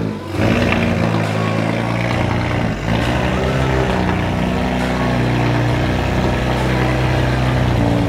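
Engine of a wrapped BMW coupe drift car running steadily through its exhaust, with a brief change in pitch about three seconds in.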